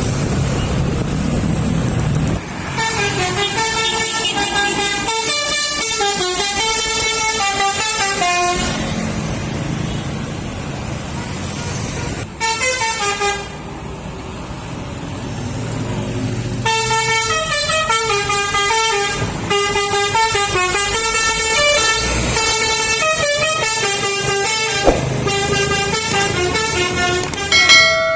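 Telolet multi-tone air horn on a Mitsubishi Ragasa dump truck playing a tune of stepping notes: a long run starting a couple of seconds in, a short burst around twelve seconds, and another long run from about seventeen seconds on. Between the tunes the truck's diesel engine runs.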